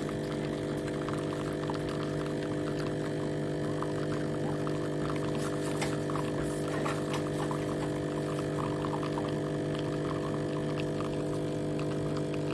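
Breville Bijou espresso machine's pump humming steadily as water runs through it.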